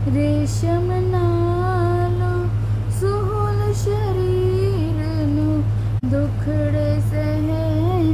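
A girl singing a slow melody with long held, gently wavering notes into a handheld karaoke microphone, over a steady low hum. The sound drops out briefly about six seconds in.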